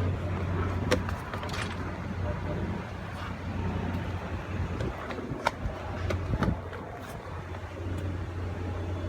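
A motor vehicle running, a steady low hum that fades out about a second in and comes back a couple of seconds before the end, with scattered clicks and knocks.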